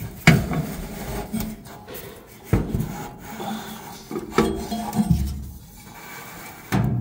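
A fireplace blower fan unit being shifted and scraped about in the tight compartment beneath the fireplace, rubbing against the surrounding surfaces, with a handful of sharp knocks spread through it.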